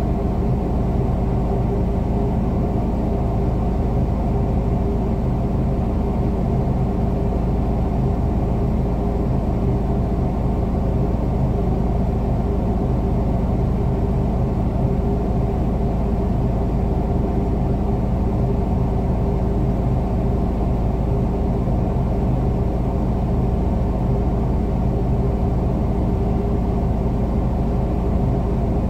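Crane engine running steadily at one constant speed, a low rumble with a fixed hum that does not rise or fall.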